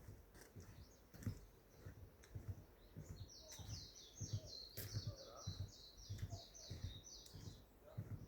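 A songbird singing a fast run of high, repeated notes, about four a second, from about three seconds in until near the end, over soft low thumps about twice a second.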